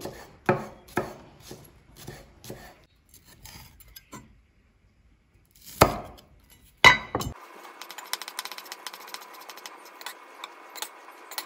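Chef's knife slicing a spring onion on a wooden cutting board: a run of knife taps about twice a second, then after a pause two sharper chops a second apart. Faint light ticking over a low hiss follows.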